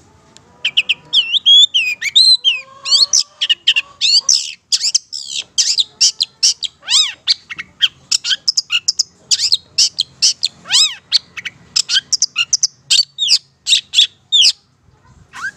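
Long-tailed shrike (cendet) singing in full voice: a fast, nearly unbroken run of short chirps and whistled rising and falling notes. It starts about a second in and pauses briefly near the end.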